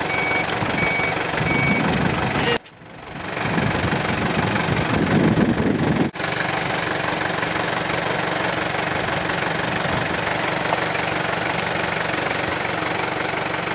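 Toyota forklift engine running steadily, with its warning alarm beeping for the first couple of seconds. The engine runs louder for a moment about five seconds in, and the sound cuts out briefly twice.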